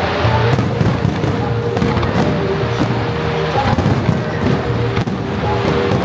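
Aerial fireworks bursting and crackling in a dense, unbroken barrage, with the show's synchronized music playing underneath.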